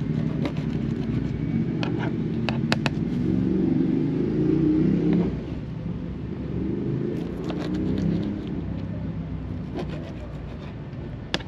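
A knife cutting fresh sardines into bait chunks on a plastic cutting board: sharp taps and clicks as the blade hits the board, in small clusters. Under them runs a steady low motor rumble, like a vehicle engine running nearby, louder in the first half.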